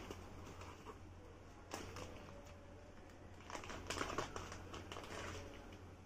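Clear plastic packaging crinkling and rustling as small plastic toy cars are pulled out of it, in short scattered bursts, busiest about three and a half to four seconds in.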